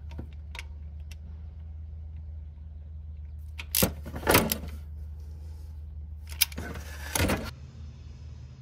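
Ratchet and socket extension on the oil filter housing bolts: a few light clicks, then loud metallic clanks and scrapes as the bolts are snugged by feel, over a steady low hum.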